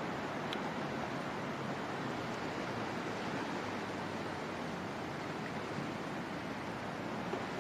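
Steady, even wash of sea surf on a sandy beach.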